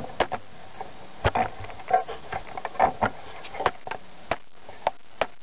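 Irregular light clicks and knocks of metal engine parts being handled as an ignition coil is fitted to a Briggs & Stratton small engine, about a dozen in all, some with a short ring.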